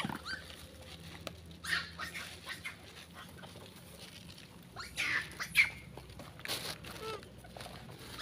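Long-tailed macaques giving short, high-pitched squeals and chirps: a few calls about two seconds in, and a cluster from about five to seven seconds in.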